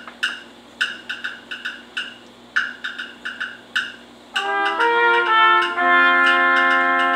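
Concert band playing: a percussion rhythm of short, sharp hits, then about four seconds in the brass and woodwinds enter with louder held chords that step upward and then sustain.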